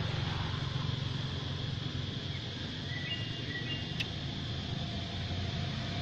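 Steady low hum of outdoor background noise, like a distant motor, with a faint brief high chirp about three seconds in and a single small click a second later.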